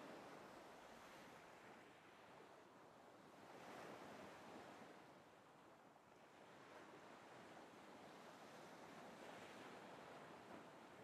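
Faint ocean surf: waves washing in, the hiss swelling and easing a few times.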